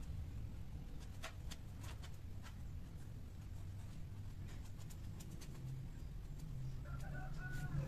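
Two mating cats scuffling on a tiled floor: faint scattered taps and clicks over a low hum, with a brief pitched call near the end.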